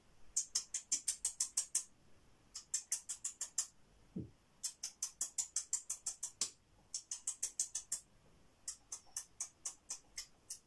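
Mouth-made nibbling sound effects: rapid short hissy clicks, about seven a second, in runs of one to two seconds with short pauses, voicing a shadow rabbit munching grass stalks. A brief low vocal sound comes about four seconds in.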